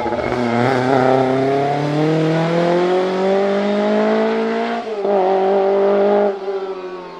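Rally car engine accelerating hard away, its pitch rising steadily through one long gear, with a gearshift about five seconds in. The engine note then holds high for about a second before it lifts off and drops away sharply near the end.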